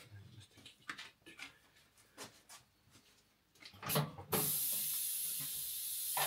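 Light clicks and knocks of a wheel being handled on a tire changer, then, about four seconds in, a sudden steady hiss of compressed air from the pneumatic tire changer.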